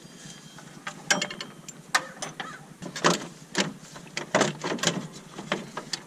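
Irregular sharp metallic clicks and knocks of hand tools and metal parts during work on a power steering pump installation, about a dozen over several seconds, some with a short ring.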